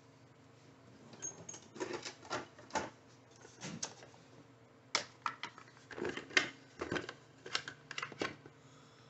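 Hand tools and small parts being handled on a workbench: an irregular run of sharp clicks and taps, several a second in clusters, from about a second in until near the end.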